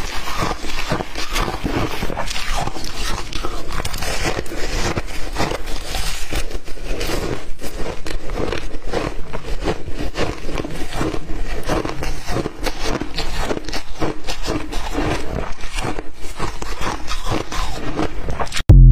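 Close-miked crunching of ice being chewed: a continuous, dense run of crisp cracks and crackles. A sudden loud thump comes just before the end.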